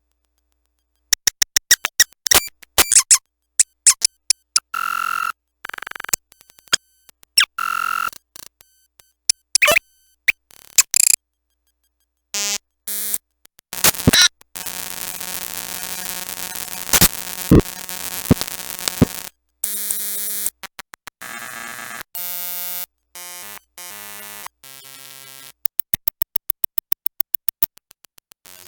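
Circuit-bent My First Smart Pad talking toy glitching through its line output: stuttering chopped bursts and clicks, then a long harsh buzzing stretch around the middle, stepped blocks of tones, and a fast run of evenly spaced clicks near the end. The toy's voice samples are crashing and looping under the modified pitch control.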